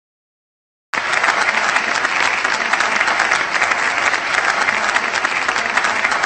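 Crowd applause, many hands clapping densely and evenly, cutting in suddenly about a second in.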